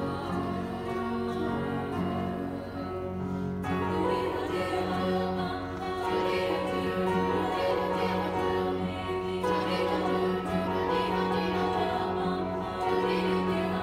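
Women's choir singing in harmony, holding long chords; the chord changes about four seconds in and again near ten seconds.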